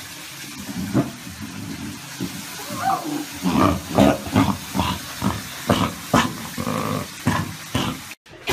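Lion cubs growling and grunting as they feed together from a bowl, a dense run of short, irregular sounds starting about a second in and cutting off abruptly near the end.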